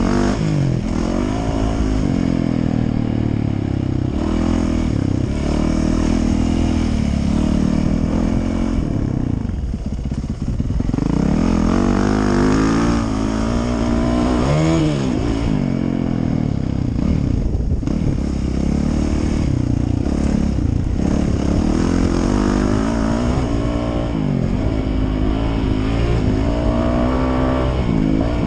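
Yamaha YZ450F single-cylinder four-stroke motocross bike engine revving hard, heard onboard while it is ridden around a track. Its pitch climbs and falls again and again as it is shifted and throttled, with a brief drop off the throttle about ten seconds in.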